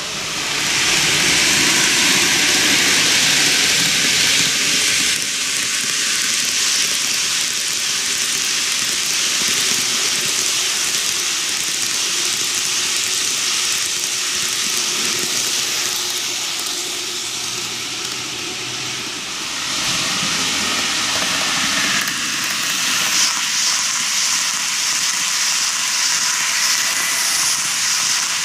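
TOMIX N-gauge model of a JR 185-0 series 15-car train running on TOMIX superelevated track: a steady hissing rumble of wheels on the rails and the running gear. It grows louder about half a second in and dips briefly about two-thirds of the way through.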